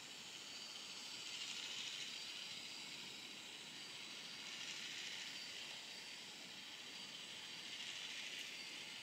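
L'Oréal Professionnel Steampod 3.0 steam straightener hissing steadily as it releases steam while its plates glide down a section of hair, swelling a little louder now and then.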